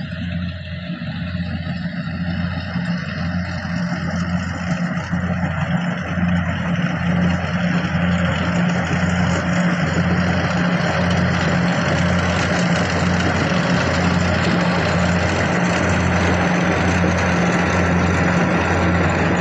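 Kubota DC104 combine harvester's diesel engine and machinery running steadily with a low hum, growing louder over the first several seconds and then holding level.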